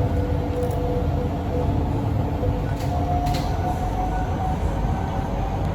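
Inside a C151B metro train running on the line: a steady low rumble with a motor whine that fades out about one and a half seconds in, then a higher whine that starts about three seconds in and slowly rises in pitch as the train picks up speed.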